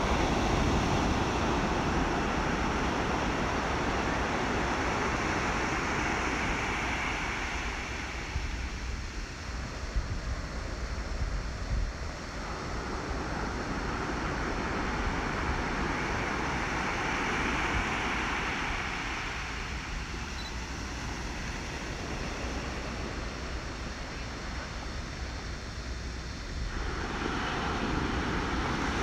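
Ocean waves washing, a rushing sound that swells and ebbs slowly about three times.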